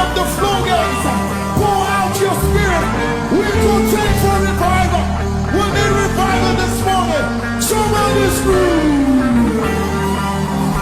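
Live gospel worship music: a church band plays held bass notes with occasional cymbal crashes, while a voice sings long gliding, wordless runs, one sliding down near the end.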